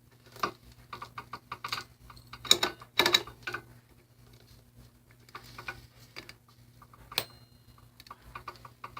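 Motorcycle roller chain being pulled through by hand, its metal links clicking and clinking irregularly, with a few louder clacks about two and a half and three seconds in.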